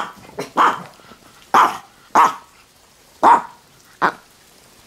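Chihuahua barking: about six short barks spaced half a second to a second apart.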